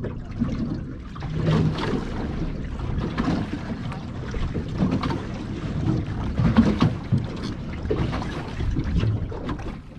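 Wind buffeting the microphone over water slapping irregularly against the hull of a small boat at sea.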